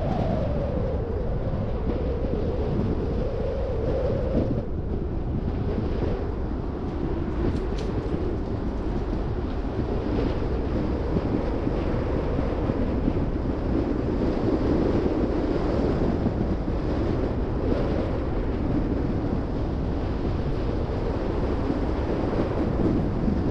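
Car driving along: steady road and wind noise with a low drone that wavers slightly.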